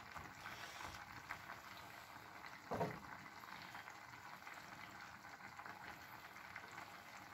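Faint bubbling of a clay tagine simmering on the stove. There is one brief louder sound about three seconds in.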